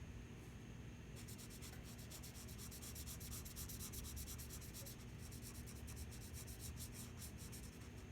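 Drawing tool scratching on sketchbook paper in quick, short repeated strokes while small details are added to a sketch, in two runs: from about a second in, and again from about five seconds in to near the end. A steady low hum lies underneath.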